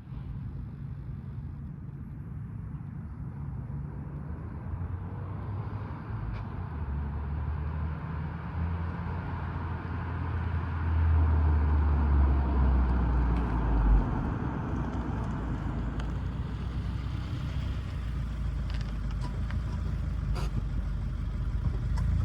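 A car engine running with a steady low hum that swells from about six seconds in, is loudest around twelve seconds, and drops off sharply at about fourteen seconds before settling back to a steady hum.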